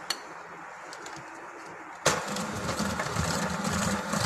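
Electric hand mixer switched on about two seconds in, its beaters churning cocoa and flour into whipped egg batter in a steel bowl at a low speed. A short click comes just before.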